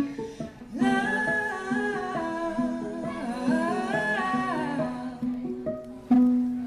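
Acoustic guitar picked note by note, joined about a second in by a voice humming a wordless melody that steps up and down; near the end the hum stops and the picked guitar notes carry on alone.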